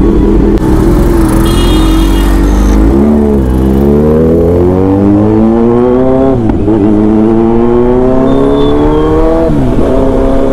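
Kawasaki Z900 inline-four motorcycle engine pulling away from a standstill and accelerating hard through the gears. The engine note climbs in pitch and drops back sharply about every three seconds as it shifts up.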